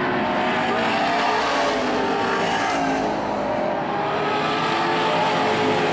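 Pack of pro stock race cars at racing speed, their engine notes overlapping and rising and falling as they go by.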